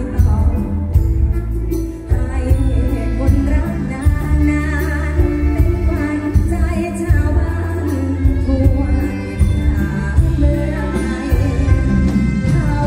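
A live band plays through a stage PA while a woman sings into a microphone, over heavy bass and a steady drum beat.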